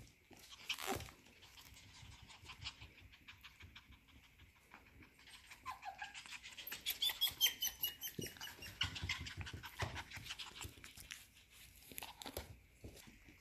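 F1B cockapoo puppies panting and snuffling close up, with many small clicks and taps, busiest and loudest around the middle, where a few brief high whines come through.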